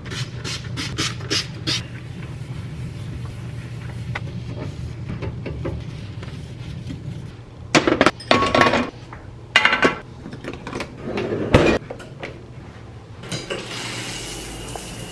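Metal gas-stove grates being lifted off the cooktop and set down, clattering and knocking in several clusters. Near the end, a hiss of shower water running.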